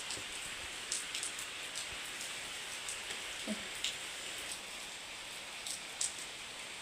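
Steady rain falling, an even hiss with scattered sharp drip-like ticks.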